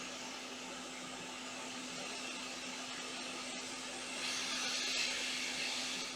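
Hot air rework station blowing steadily at about 330 °C and 60% airflow, heating the laptop board around the charging port; the hiss of the air grows louder about four seconds in.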